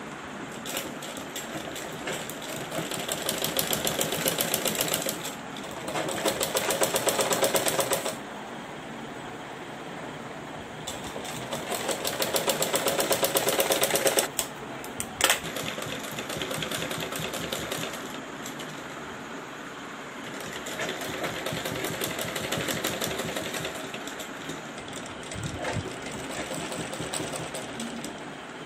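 Sewing machine stitching fabric in fast, steady runs of needle strokes. It goes louder and faster in several spells and eases between them, with one sharp click about fifteen seconds in.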